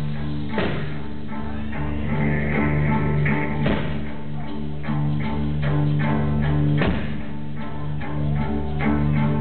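Live rock band playing an instrumental passage: electric guitar over steady low bass notes and a regular beat, with maracas shaking.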